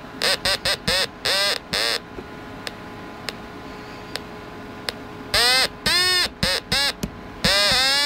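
Homemade 555 timer tone generator sounding through a small loudspeaker as its touch keys are tapped: short electronic beeps at different pitches, each swooping up in pitch at the start and dropping as the key is released. About six quick beeps at first, a pause with faint clicks in the middle, about five more beeps later, then a held tone near the end.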